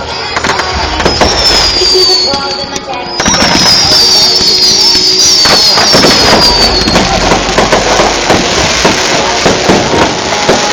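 Fireworks going off: high whistles that each fall in pitch, repeating and then overlapping, over sharp bangs. From about three seconds in, a dense crackle fills in and the bangs and whistles come thick and fast.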